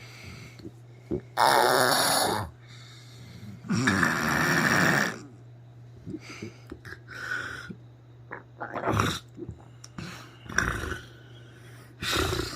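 Snoring through the mouth: two long, loud snores about one and a half and four seconds in, followed by shorter, quieter breath sounds.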